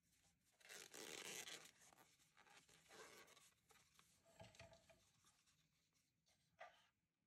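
Faint rustling and rubbing of chunky t-shirt yarn being pulled through stitches with a large crochet hook, loudest about a second in, with a short scrape near the end.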